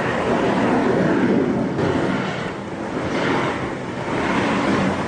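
Amateur outdoor recording of the unexplained rumbling 'strange sound' reported over Chilean cities: a steady, noisy rumble that swells and eases in waves, likened to twisted metal or an industrial noise.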